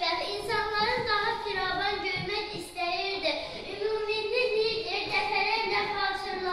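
A young girl singing into a handheld microphone, a single voice with long held notes that glide between pitches.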